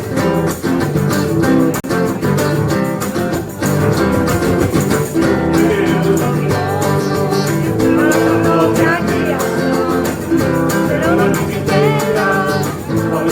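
Background music: a song with guitar and a singing voice, the voice coming in about halfway through.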